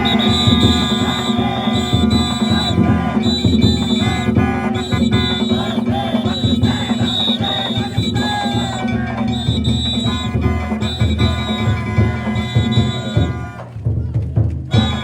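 Danjiri festival music (narimono): a taiko drum beaten with ringing metal hand gongs (kane) struck in a repeating rhythm, with voices beneath. It drops briefly about a second before the end.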